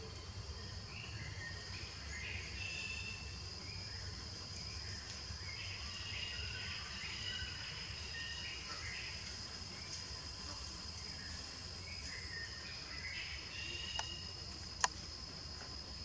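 Forest ambience: a steady high insect drone, joined by a second, higher drone from about halfway through that stops a few seconds later, with scattered bird chirps. Near the end come two sharp clicks, the second the loudest sound.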